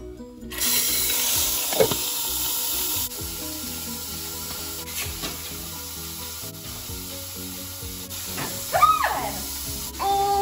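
Magnetic pin tumbler switched on, its stainless steel pins whirling in the bowl with a steady sizzling hiss as they polish a sterling silver ring; the hiss is loudest for the first couple of seconds, then settles lower. Background music plays throughout.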